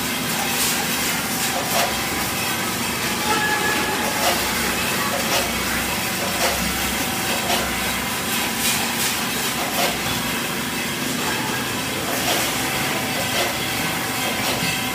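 Automatic weighing and packaging machines running: a steady hiss and mechanical noise, with a sharp clack about once a second as the machines cycle.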